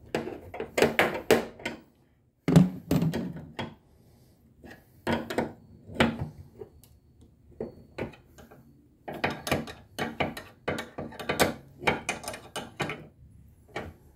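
Clicks, clinks and knocks of hand tools and metal fittings while a bonnet gas strut is unbolted from its mount. There is a single loud knock about two seconds in and a quick run of clicks near the end.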